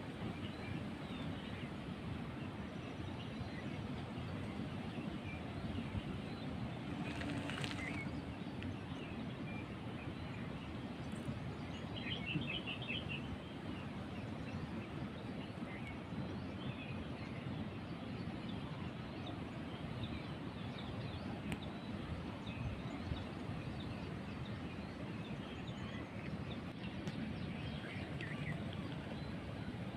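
Outdoor ambience: a steady background hiss with faint bird chirps here and there, and a short run of chirps about twelve seconds in.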